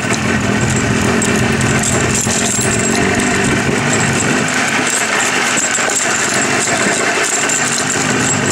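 Jawa 350 motorcycle's two-stroke twin engine running steadily under way, with road noise.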